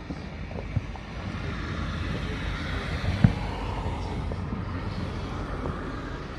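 Fireworks going off in the distance: a sharp bang about three seconds in and a smaller crack near the start, over a broad rumble that swells and fades.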